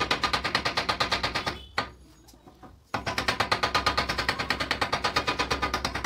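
Rapid, even tapping on a wooden block held over a marble border strip, about nine knocks a second, bedding the strip level into its cement mortar. The tapping stops for about a second near two seconds in, then picks up again.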